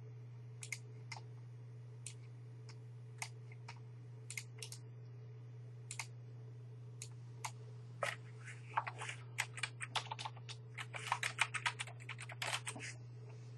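Typing on a computer keyboard: scattered single keystrokes, then a quicker run of keys from about eight seconds in, over a steady low hum.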